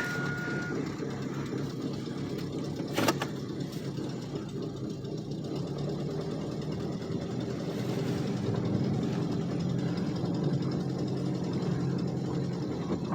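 Chevy Cavalier engine idling steadily just after a cold start, the engine the owner says has a rod knock. A single sharp click about three seconds in.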